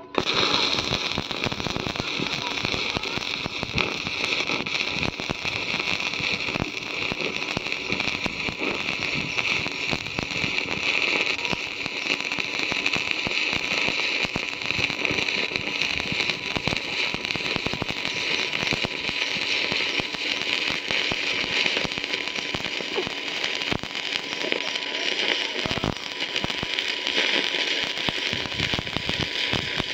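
Stick-welding (shielded metal arc) electrode arc crackling and sizzling continuously while laying a bead on a steel channel. It strikes suddenly at the very start and burns steadily without a break.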